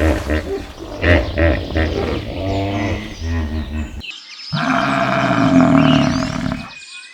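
Farm animals calling: a quick run of short pitched calls, then after a brief break one longer call of about two seconds that stops sharply.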